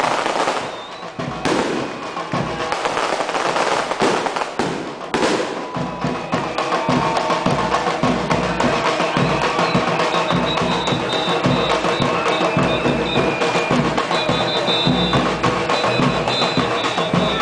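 A street drum group beating a fast, steady rhythm on barrel drums and metal pans. Several firecracker bangs cut through in the first five seconds or so.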